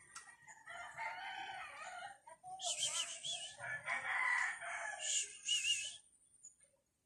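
Roosters crowing: a long crow, then louder overlapping crows that stop about six seconds in.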